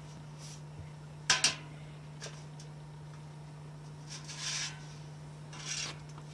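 A round metal-rimmed insert being handled inside a metal bin: two sharp metal clanks about a second in, a light tick, then two brief scraping swishes as it is lifted. A steady low hum runs underneath.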